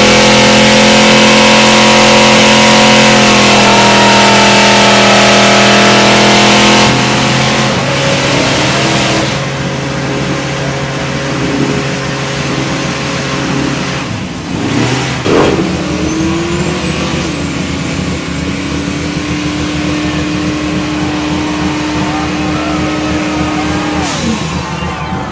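Car engine held at high revs close by, very loud and steady for about seven seconds, then easing off to a lower running sound among other running engines.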